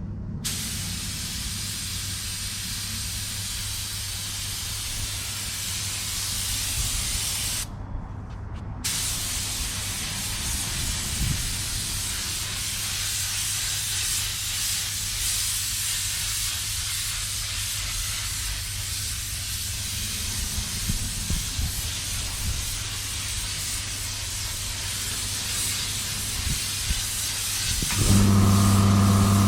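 Hiss of paint being sprayed onto a car bumper, in long passes with about a one-second break early on, over a steady low hum. Near the end the spraying stops and a louder motor hum starts.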